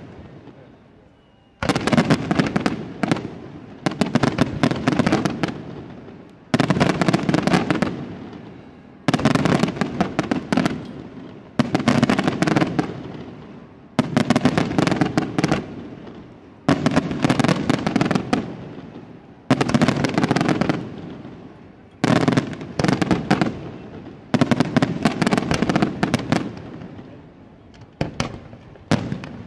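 Aerial firework shells bursting one after another, about every two and a half seconds. Each goes off with a sudden bang followed by dense crackling that dies away over a couple of seconds.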